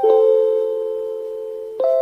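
JR Hokkaido station chime for blind passengers, playing its repeating note sequence. A lower, two-toned note strikes at the start and rings, slowly fading, for nearly two seconds, then the next, higher note strikes near the end.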